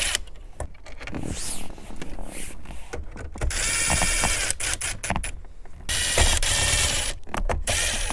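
Ridgid 18V cordless impact driver driving screws into the radio's mounting bracket. It runs in two bursts of a second or more, about three and a half and six seconds in, with clicks and rattles of handling between them.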